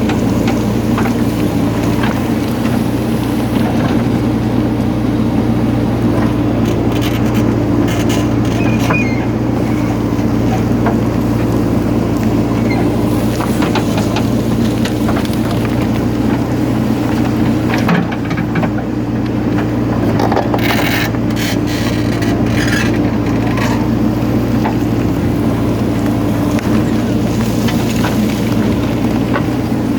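JCB 3DX backhoe loader's diesel engine running steadily while working, with scattered scraping and knocks as soil is moved.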